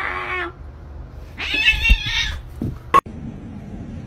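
A cat yowling twice: a rising-and-falling call right at the start, then a louder, harsher yowl about a second and a half in. A short sharp click follows about three seconds in.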